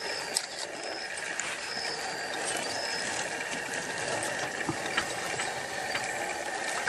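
Porcupine rattling its raised quills while a leopard paws at it: dry, irregular clicking and rattling over a steady background hum.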